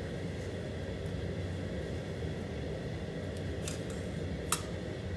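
Steady low hum of workshop background noise, with a single short, sharp tick about four and a half seconds in as a small cut piece of sheet metal is laid on the squaring shear's steel bed.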